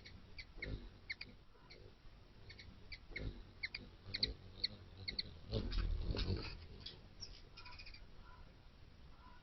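Hummingbirds at a nectar feeder giving short, sharp chip notes over and over. Their wings whir low and close by, loudest about six seconds in.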